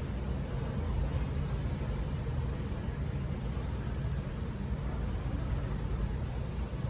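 Steady low background rumble with a faint hiss, even throughout, with no distinct clicks or knocks.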